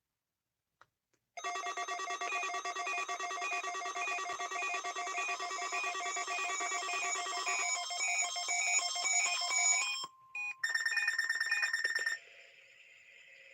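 A loud electronic signal of several steady tones stepping on and off in a regular pattern. It starts suddenly after a moment of silence, breaks off briefly about ten seconds in, returns as a short burst, then gives way to a faint steady tone.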